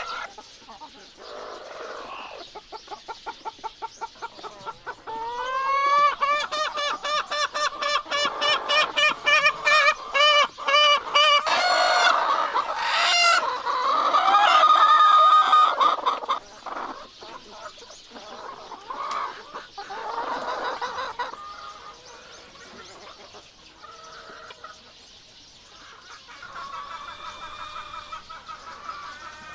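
Chickens clucking: a long run of rapid, evenly repeated clucks that grows louder, then loud drawn-out calls about twelve to sixteen seconds in, then softer scattered clucks.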